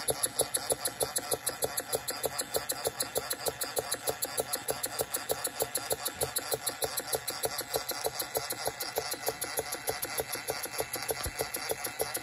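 Model beam engine running at a steady speed, beating out an even, rapid rhythm of several strokes a second.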